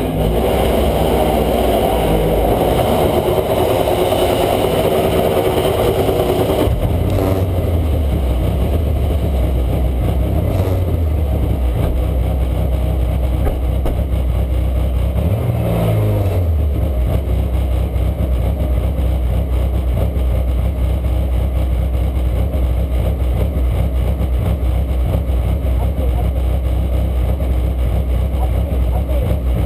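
BMW E90 Super2000 race car's engine idling, heard from inside the cabin, with a short blip of the throttle about halfway through. Over the first seven seconds a louder steady noise sits on top and cuts off suddenly.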